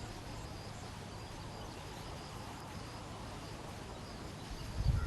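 Outdoor ambience: a steady background hiss with faint, high-pitched chirping repeating throughout, and a few low thumps near the end.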